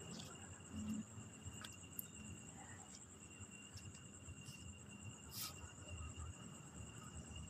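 Faint, steady high-pitched trilling of insects, with a faint click about five seconds in.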